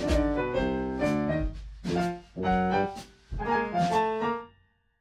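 Jazz piano chords played on a Kurzweil PC4 stage keyboard's piano sound, a short phrase of struck chords. The last chord dies away about four and a half seconds in.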